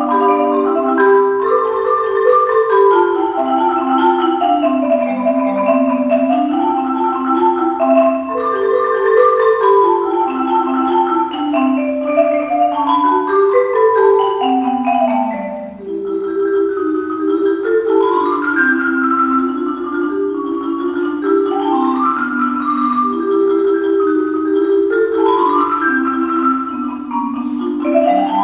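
Four-hand marimba duet on one Saito concert marimba: fast, continuous runs of mallet strokes, with a lower line and a higher line moving together and a brief dip in loudness about halfway through.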